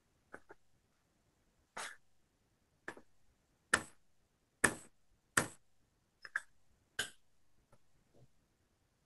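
About ten sharp plastic taps and clicks as a small ink pad is dabbed onto a clear acrylic stamp held in a stamp-positioning wheel; the loudest three come in the middle, a little under a second apart.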